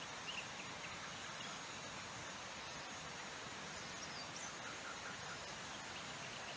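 Steady quiet outdoor ambience in woodland undergrowth, with faint high chirps near the start and again about four seconds in.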